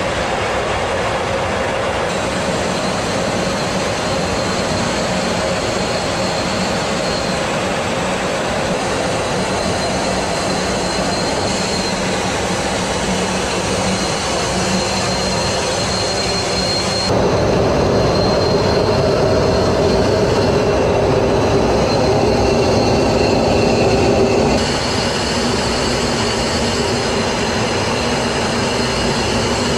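Steady in-flight cabin noise inside a B-52 bomber's crew compartment: dense engine and airflow noise with a faint steady high tone. It jumps louder about seventeen seconds in and drops back abruptly near twenty-five seconds.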